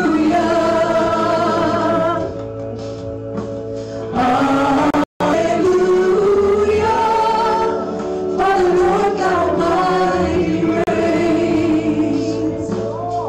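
Live gospel worship song: several vocalists sing into microphones over sustained instrumental chords. The audio cuts out completely for a moment about five seconds in.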